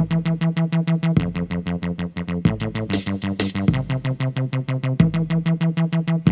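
Intro music on a synthesizer or electronic keyboard: fast repeated chords at about eight pulses a second, changing chord about every second and a quarter. A bright cymbal-like shimmer joins in briefly midway.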